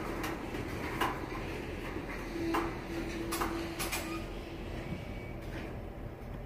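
Freight train cars rolling slowly past at close range: a steady low rumble of steel wheels on rail, broken by several sharp metallic clicks and clanks, with a faint whine for a couple of seconds midway.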